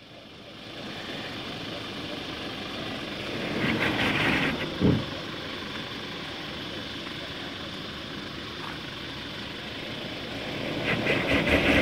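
Toyota Hilux N80 ute's engine running as it crawls up a rocky step, growing louder twice under load, around four seconds in and near the end, with a single short knock just before five seconds.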